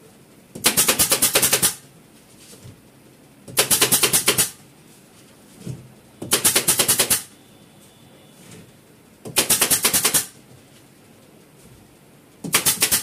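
Pneumatic upholstery staple gun firing rapid strings of staples into a wooden sofa frame, about eight shots a second. It fires in five bursts of about a second each, with short pauses between them; the last burst comes near the end.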